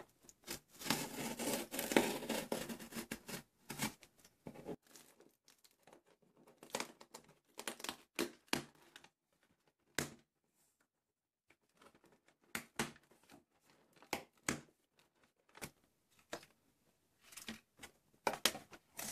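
Paper and cardboard packaging being torn open and crumpled: a dense burst of tearing and rustling about a second in, then scattered crinkles and handling clicks.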